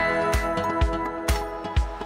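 Background music with a steady beat: a kick drum about twice a second under held chords.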